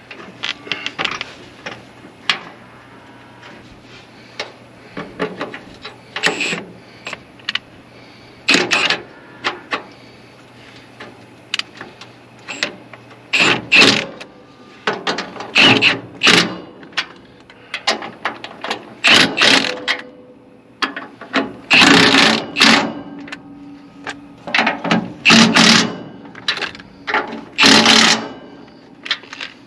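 Ratchet wrench clicking in short repeated bouts as bolts on a baler are worked, with metal clanks between. A low steady hum runs underneath and stops about halfway through.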